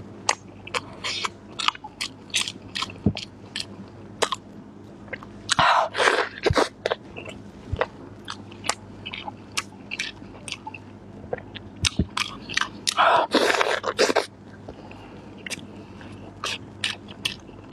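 Close-miked eating: crisp bites and chewing, with many sharp crunchy clicks and two longer, louder bursts about six and thirteen seconds in.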